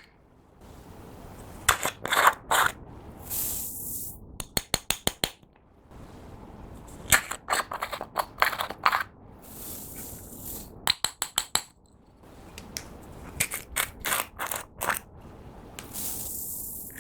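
Slime mixed with makeup, nail stones and glitter being pressed and stretched by hand. It makes runs of quick sticky clicks and pops, with short squelching hisses between them.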